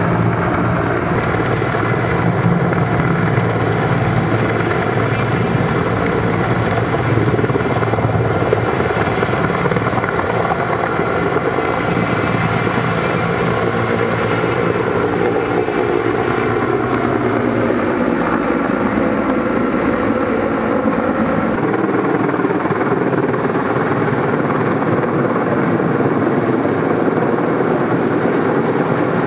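Sikorsky S-64 Air-Crane firefighting helicopter's turbines and rotor running loud and steady, with a thin high turbine whine over the roar. The sound shifts abruptly about a second in, and again about two-thirds of the way through, where the deep part of the roar falls away.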